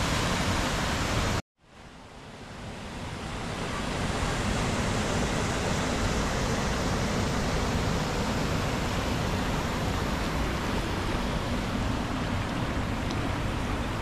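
Steady rushing of water from small waterfall cascades. It cuts out for a moment about a second and a half in, then fades back up.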